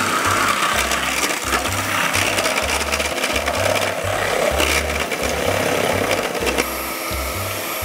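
Kenwood electric hand mixer running, its beaters whipping cream in a stainless steel bowl with a rough scraping noise. It stops near the end.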